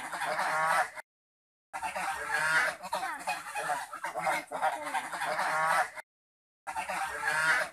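Several domestic geese honking over and over, their calls overlapping. The sound cuts out completely twice for about half a second, about a second in and about six seconds in.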